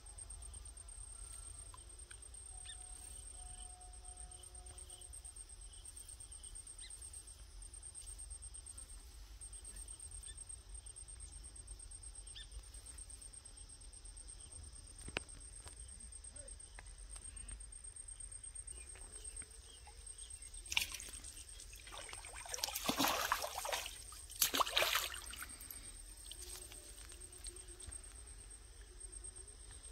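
An insect trills steadily at a high pitch throughout. About two-thirds of the way in come several seconds of loud splashing as a hooked fish thrashes at the water's surface while it is pulled in.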